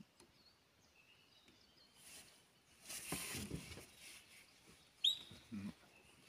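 Faint bird chirps in the forest, with one sharp, falling bird note about five seconds in. A brief rustling noise comes around the middle.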